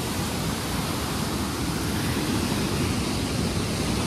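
Fast-flowing mountain stream close by: a steady, unbroken rush of water.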